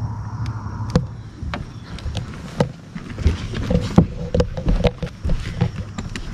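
Irregular knocks and clatter of things being handled and bumped inside a small fishing boat. A low hum dies away right at the start.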